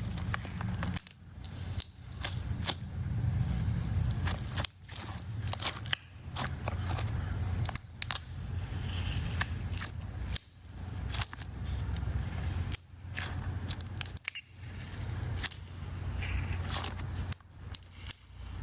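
Jelly cube slime being squeezed and pressed by hand, giving dense runs of sharp crackles and small pops, broken by short pauses every second or two.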